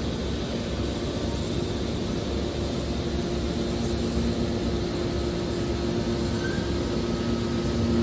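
Hydraulic scrap-metal baler running: the steady drone of its hydraulic power unit's motor and pump, with a low, even hum.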